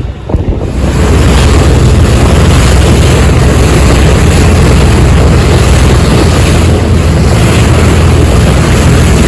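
Cruise boat under way: a steady, loud engine rumble mixed with wind buffeting the microphone, coming in about a second in and holding.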